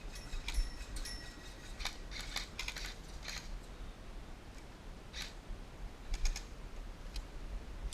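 Airsoft gun firing: sharp mechanical clicks, some in quick clusters and some single, irregularly spaced.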